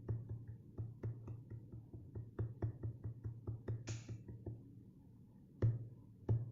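A beat of drum sounds played on a pad controller: quick, uneven percussive hits over repeated low thuds, with a short hissy cymbal-like hit about four seconds in and a louder hit near the end.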